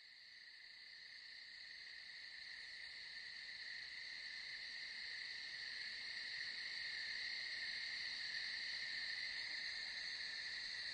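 Night-time chorus of crickets chirping steadily, fading in gradually over the first few seconds and then holding.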